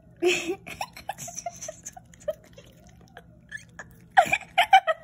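Maltese puppy licking and smacking at peanut butter on a spoon: a run of short wet smacks and clicks, with a cluster of louder quick pulses near the end.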